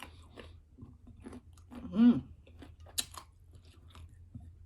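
Close-up chewing and biting of mango pieces: wet crunches and small clicks from the mouth. A short voiced sound from the eater comes about two seconds in.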